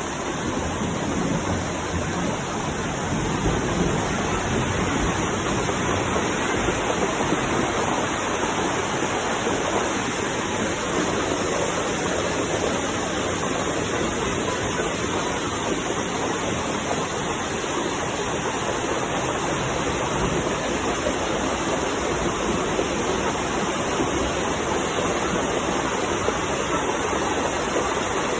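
Heavy downpour: a steady, dense rush of rain and running water.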